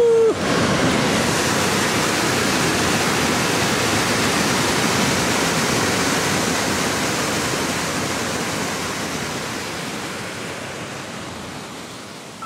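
Whitewater rapids of a creek at very high water, a dense steady rush of water that slowly fades down toward the end. A shout of "woo" cuts off right at the start.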